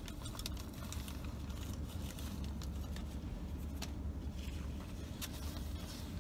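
Steady low rumble inside a parked car's cabin, with a few faint clicks from eating and handling a paper sandwich wrapper.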